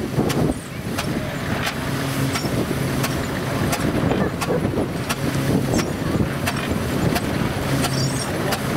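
An engine running, with sharp knocks at uneven intervals, about two a second, over a steady noisy bed, and a low steady tone that comes and goes.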